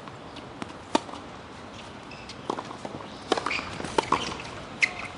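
Tennis ball impacts on a hard court: a series of sharp pops from ball bounces and racket strikes, one clear pop about a second in, a quick run of hits and bounces around three to four seconds in as the ball is played, and a loud pop near the end.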